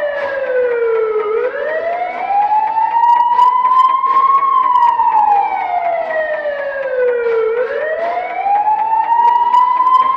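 Siren sound effect from a DJ sound-system track, a slow wail that falls and rises twice, each slide lasting about three seconds, with faint ticks above it.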